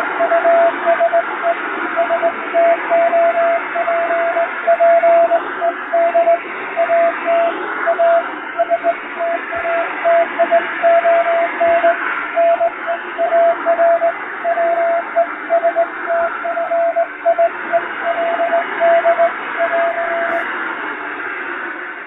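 Morse code (CW) beep keyed on and off in dots and dashes, sending an English-language telegram, heard through shortwave receiver static with fading. The keying stops shortly before the end, leaving only the hiss.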